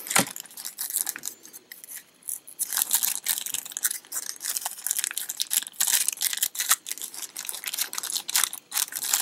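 Clear plastic zip-lock bags crinkling and crackling as they are handled and pulled open by hand, a stream of irregular rustles and crackles.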